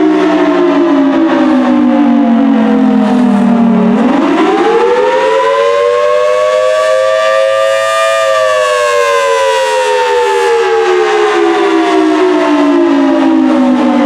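Federal Signal Thunderbolt 1000T outdoor warning siren sounding loud and wailing. Its pitch sinks to its lowest about four seconds in, climbs back up over the next four seconds, then slowly falls again.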